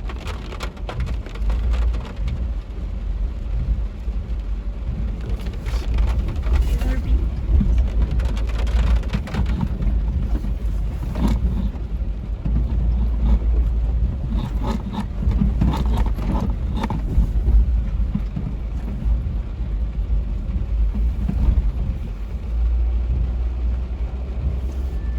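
Pickup truck driving through flood water: a steady low rumble, with scattered clicks and knocks.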